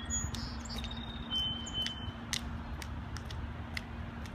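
Outdoor ambience: a steady low rumble with a faint hum, and a small bird's thin, high whistled notes in the first two seconds, each step a little lower than the one before. A few faint clicks are scattered through.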